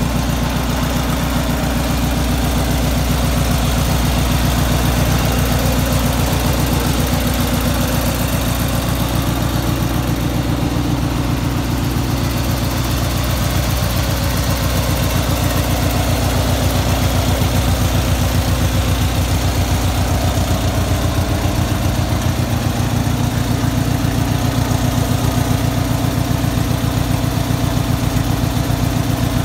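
Engine of a 1997 Sears Craftsman riding mower running steadily at idle, with no change in speed.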